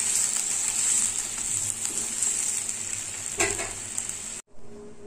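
Milk and grated bottle gourd bubbling and sizzling in a hot kadhai while a wooden spatula stirs them. The sizzling hiss is steady, then cuts off abruptly about four and a half seconds in.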